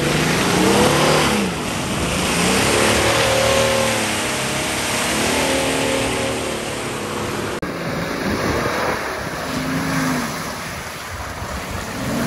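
Land Cruiser 300's 3.3-litre twin-turbo V6 diesel revving up and down repeatedly as it is driven hard, over a heavy rush of tyre and wind noise. The sound changes abruptly about two-thirds of the way through.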